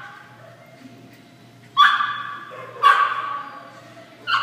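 A dog barks three times, high sharp barks about a second apart, each trailing off in the hall's echo.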